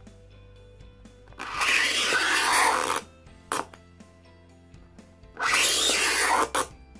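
Utility knife blade scraped hard along an acrylic sheet to score it for cutting, in two long strokes of about a second and a half each, each followed by a short click.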